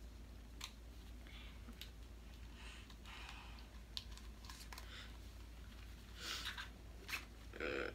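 Faint, scattered light clicks and brief rustles of small makeup items and their packaging being handled, with a slightly louder rustle near the end.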